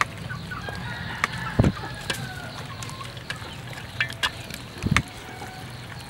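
Chickens clucking in the background while hands work spice paste into raw quail on a metal tray, with a few sharp clicks and two dull thumps, about one and a half and five seconds in.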